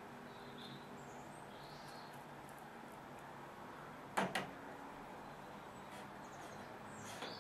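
Quiet room tone broken by a sharp double knock about four seconds in and a lighter click near the end, with a few faint high chirps in the first two seconds.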